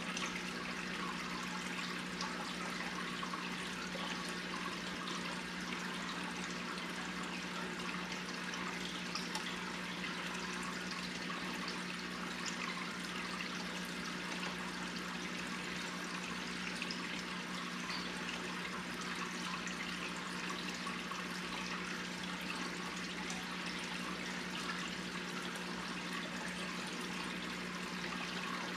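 Aquarium water bubbling and trickling steadily from the tank's aeration and filter, over a steady low hum.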